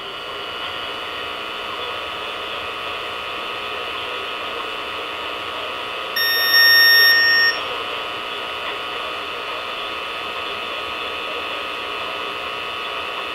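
Weather radio receiver putting out steady static hiss with a faint hum, dead air with no programme on the channel. About six seconds in, a single high beep sounds for just over a second.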